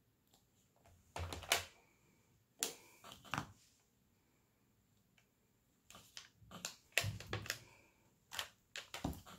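Diamond-painting drills being pressed onto the canvas with a plastic multi-placer tool: small clicks and taps in four short bursts with quiet gaps between.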